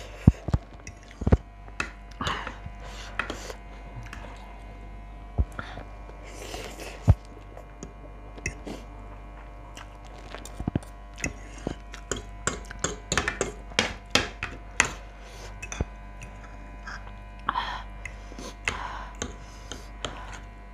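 Close-up eating of instant noodles: noodles slurped up in short noisy pulls, with fork and spoon clicking and scraping against a plate many times.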